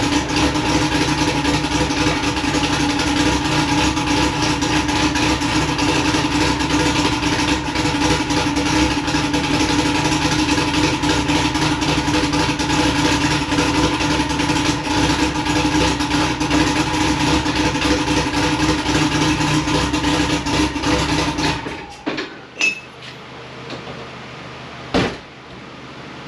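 Turbocharged Mitsubishi 4G63 four-cylinder engine running at a steady speed, then shut off about 22 seconds in; a couple of sharp clicks and a knock follow.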